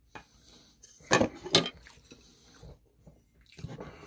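Short clatters of tableware being handled on a table: two close together about a second in and a smaller cluster near the end.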